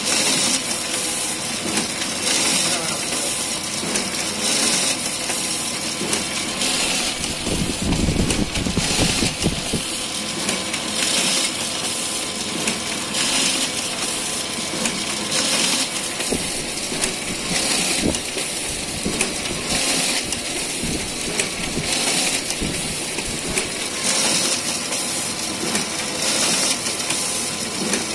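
Photocopier mechanism running: a continuous whirr and clatter of rollers and gears, with a swishing hiss that recurs every couple of seconds. A heavier rumble comes about eight seconds in.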